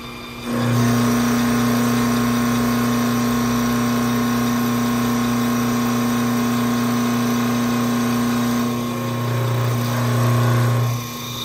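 CNC wood lathe running, its tool cutting a spinning wood blank: a steady motor hum under the hiss of the cut. It swells about half a second in and eases off twice near the end.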